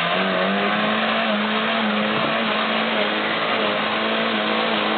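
Off-road vehicle's engine running hard at a steady pitch, dipping slightly now and then.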